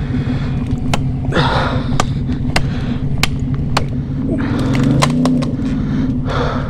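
ATV engine idling steadily, with a brief rev about five seconds in, over scattered sharp snaps and cracks. A person breathes hard between them, tired out from breaking trees down.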